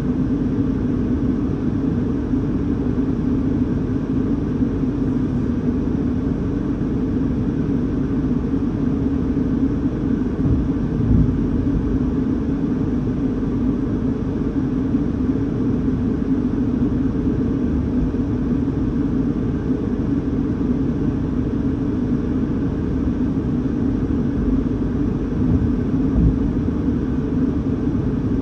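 Steady low rumble heard from inside a car cabin, muffled, with a couple of slightly louder low swells about 11 and 26 seconds in.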